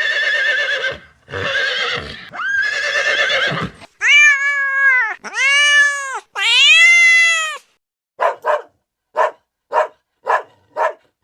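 A run of animal calls: six drawn-out pitched cries in the first seven or so seconds, the first three rougher and the last three clear and arched, then about ten short sharp calls in quick pairs near the end.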